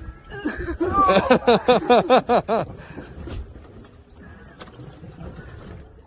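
A person's voice: a quick run of about eight short, rising-and-falling pitched cries over a second and a half, starting about half a second in, then a low steady rumble of wind and boat.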